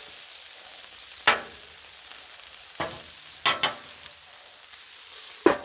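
Chicken frying on a Blackstone steel griddle with a steady sizzle. A metal spatula strikes and scrapes the griddle top about five times as the meat is stirred.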